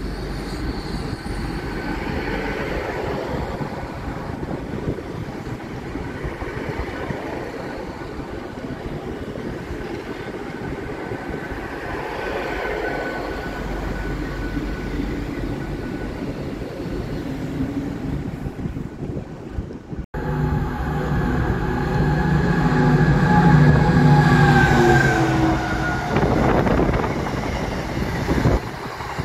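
A GWR Class 800 bi-mode Intercity Express Train runs along the platform with a steady rumble and a faint whine. After a cut, a container freight train passes: its locomotive's engine note is loudest at first, then drops in pitch as it goes by, followed by the rumble of the wagons.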